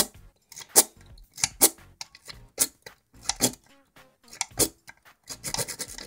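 Steel W rake scraped in and out of a euro profile pin-tumbler cylinder under tension, in short scraping strokes about one a second, some in quick pairs. The raking does not open the lock.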